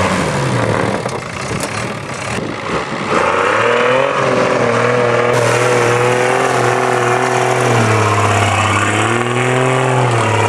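Heavily modified Suzuki Samurai's engine revving hard under load as its wheels spin in loose dirt while it pushes against a car. The revs sag in the first few seconds, climb sharply about three and a half seconds in and stay high, with a brief drop near eight seconds.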